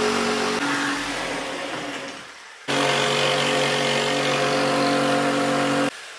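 Electric jigsaw running as it cuts into a black furniture panel. The motor winds down about a second in, starts again suddenly a little under halfway through, runs steadily for about three seconds and cuts off shortly before the end.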